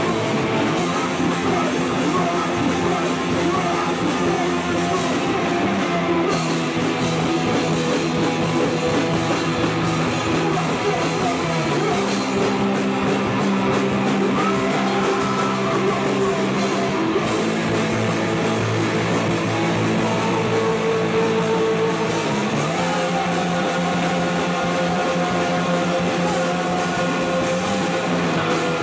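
A hard rock band playing live: electric guitars and a drum kit, with a man singing into a microphone.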